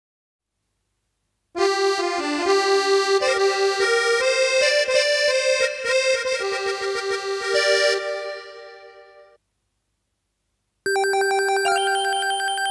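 Korg Krome synthesizer workstation playing a sound-test melody on a reedy, many-overtoned patch, with notes in the middle register. The phrase fades out, and after a short silence a second, bell-like patch starts with a held note under a melody.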